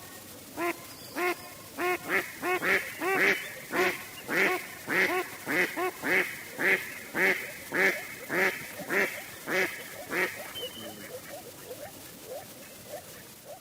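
A duck quacking over and over, a little over two quacks a second through the middle, thinning out to fainter, scattered calls near the end.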